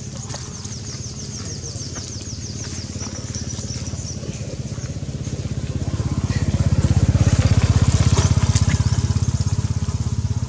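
A motorbike engine running past: its low, even pulsing grows louder about six seconds in and then eases off. For the first three seconds a fast run of high, repeated chirps sounds over it.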